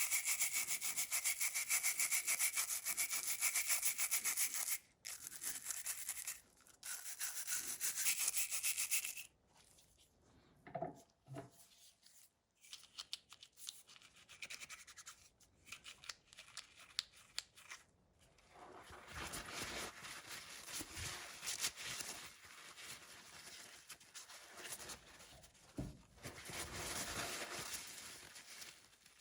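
Fast back-and-forth scrubbing by hand, in bursts, on a small part of the aluminium lighter being restored. In the middle the scrubbing gives way to a stretch of small clicks and light knocks, then resumes at a softer level.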